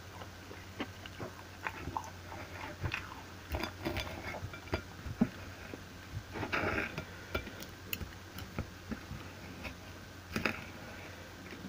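Close-up eating sounds: chewing, with a knife and fork clicking and scraping on a plate as a pancake is cut, in scattered short clicks.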